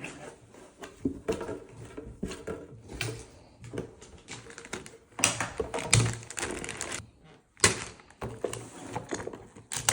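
Plastic magnetic building tiles clacking and clicking against each other as they are handled and unpacked, in irregular taps with a few louder clacks about five to six seconds in and near eight seconds.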